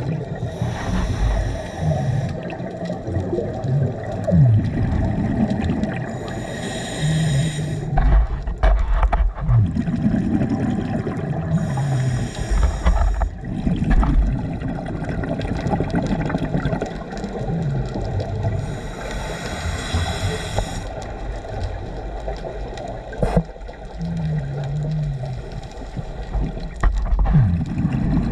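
A scuba diver breathing through a regulator underwater. A long hiss comes four times, about every six seconds, with bubbling, warbling rumbles in between.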